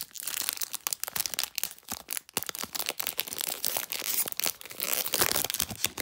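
Foil wrapper of a Magic: The Gathering Kaldheim booster pack being crinkled and torn open by hand: a dense run of sharp crackles.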